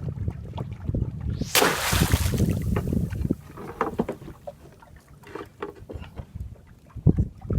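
Water sloshing around a small boat, with scattered knocks and a loud splashing rush about a second and a half in.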